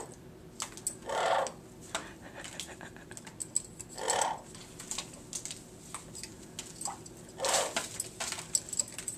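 Blue-fronted Amazon parrot bathing in a small stainless-steel water cup: a run of quick clicks and ticks of water and beak against the metal, with three louder splashes about one, four and seven and a half seconds in.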